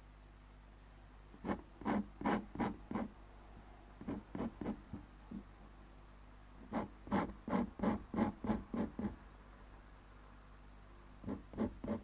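Pen nib scratching on paper while drawing ink hatching lines, in four quick runs of short strokes, several strokes a second.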